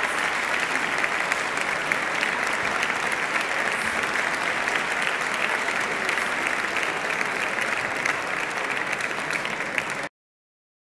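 Audience applauding steadily, a dense crackle of many hands clapping; it cuts off suddenly near the end.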